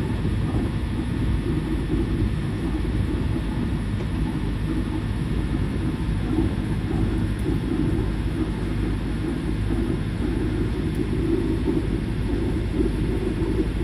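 A sailing yacht's auxiliary engine running steadily as the boat motors along, a low, even rumble.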